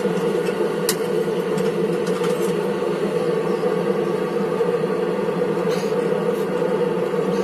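Blacksmith's forge running with a steady, even rushing noise, with a few faint light clicks.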